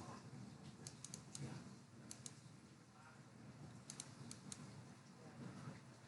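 Faint, scattered clicking from working at a computer, coming in small groups of two to four quick clicks.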